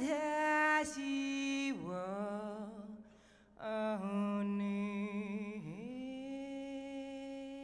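A woman singing solo and unaccompanied into a microphone: slow, long-held notes that slide down into the next, with a breath about three seconds in and a long final note.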